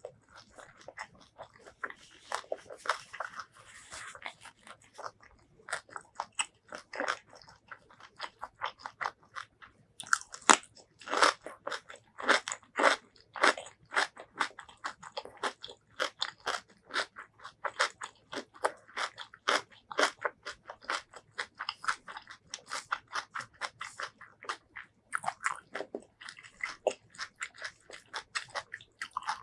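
A person chewing mouthfuls of rice mixed with shrimp curry and stink beans (petai) close to the microphone: a steady, irregular run of short chewing clicks, several a second.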